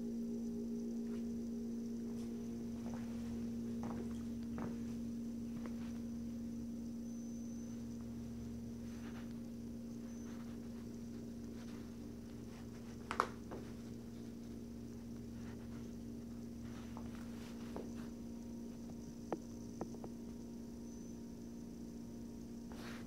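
Steady electrical hum with a few sharp clicks: one clear click about halfway through and two fainter ones a few seconds later.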